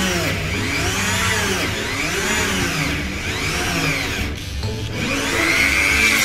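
Mollar MG005 mini grinder running a 3 mm drill bit through its flexible-shaft handpiece into thick pine. Its whine rises and falls in pitch about once a second as the bit is pressed into the wood and eased off. The whine dips briefly about four seconds in, then comes back steadier near the end.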